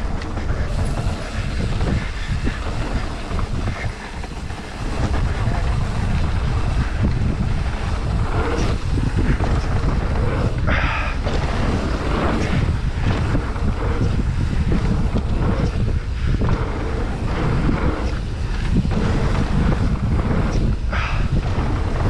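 Wind buffeting the microphone of a camera riding on a mountain bike, mixed with the rumble of tyres on a dirt trail. It gets louder about five seconds in, and a few brief knocks and rattles come as the bike goes over the jumps.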